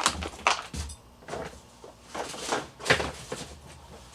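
A series of short clattering and rustling handling noises, about half a dozen, as the pouch, bowl and utensils are handled and set down on the counter.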